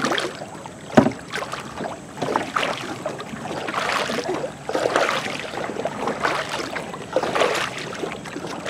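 Hand paddle strokes splashing and swishing through river water as a small wooden sampan is paddled, one uneven stroke about every second or so. There is a sharp knock about a second in.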